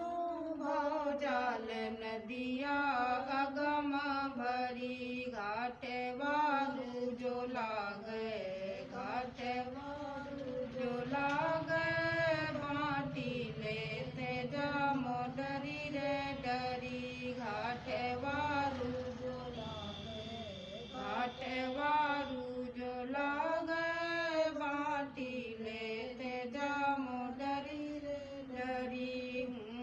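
Women's devotional chanting of a satsang bhajan, sung as one melodic line in long, wavering held notes with brief pauses for breath.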